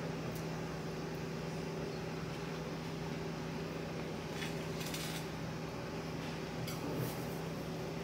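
A steady low hum with a few faint, short clinks of cutlery on a plate, about halfway through and again near the end.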